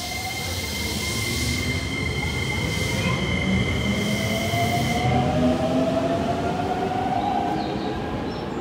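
Red Keikyu electric train pulling out: a whine from its traction motors rises slowly in pitch as it gathers speed over the rumble of its wheels. Steady high tones stop about five seconds in, and the sound swells and then fades as the train leaves.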